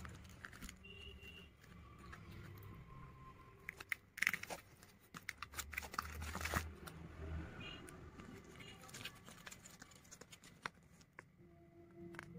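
Paper and card being handled: rustling and crackling with a run of sharp clicks and crinkles about four to seven seconds in, as flaps of a project file are lifted and unfolded.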